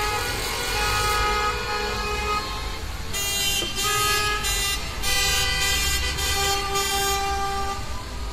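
Several car horns honking in celebration, long blasts of different pitches overlapping one another, over passing traffic.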